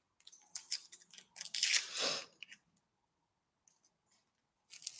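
Dry, papery red-onion skin crackling and tearing as it is peeled off by hand, in irregular bursts over the first couple of seconds and again near the end.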